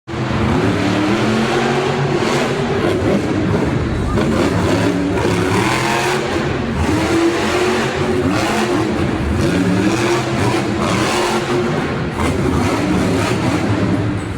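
Monster truck engines revving hard, their pitch rising and falling again and again over a loud, continuous din.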